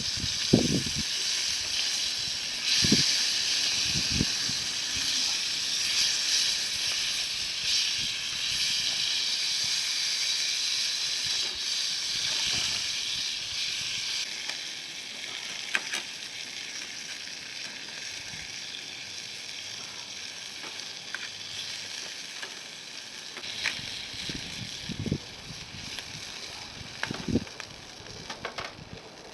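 Bonfire sizzling with a steady hiss and a few scattered sharp crackles, growing quieter over the stretch, with some low thumps near the start and near the end.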